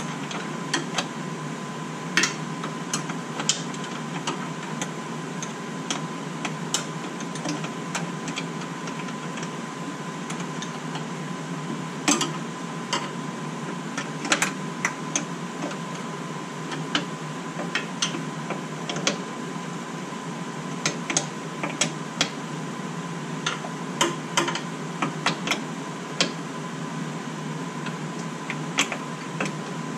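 Irregular sharp metal clicks and taps, scattered a second or two apart, from hand tools and fittings on a car's front brake line being fitted. Under them runs a steady hum with a faint constant whine.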